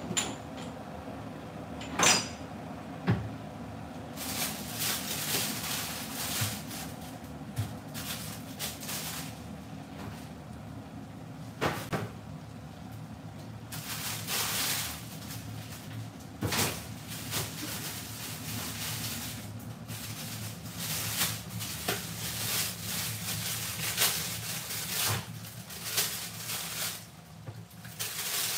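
Curry chicken simmering in a lidded pot on the stove: sizzling and bubbling that comes and goes over a steady low hum, with a few sharp knocks of kitchenware, the loudest about two seconds in and near the middle.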